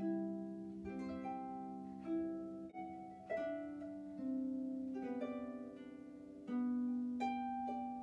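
Background music of plucked-string notes in a slow melody, each note starting sharply and fading, with several notes ringing together.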